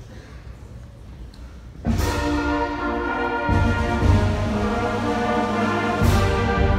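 School concert band starting to play in a gymnasium: after about two seconds of quiet hall murmur, the band comes in suddenly with loud, sustained brass chords over a heavy low bass line that strengthens a second and a half later.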